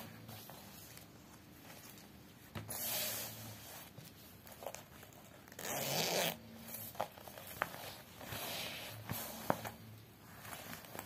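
Nylon travel bag being handled: the fabric rustles in three longer rasping swishes a few seconds apart, with a few light clicks in between.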